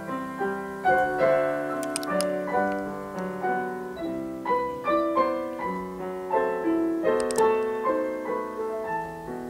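Piano playing a slow solo interlude in a romance accompaniment, its notes struck and left to fade, with no voice.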